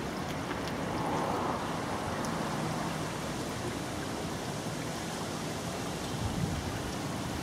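Steady rushing outdoor noise with a low rumble underneath.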